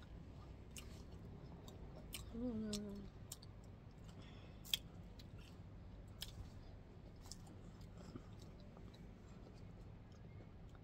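Faint close-up eating sounds: scattered small clicks and crunches of chewing, with a brief hummed "mm" about two and a half seconds in.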